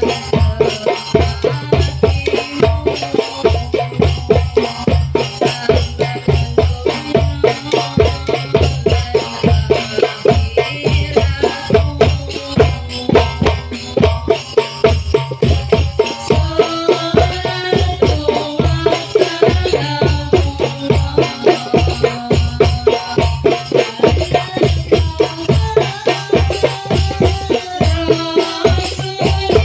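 A woman singing into a microphone over a steady, even drum beat with shaken percussion, played loud through a sound system.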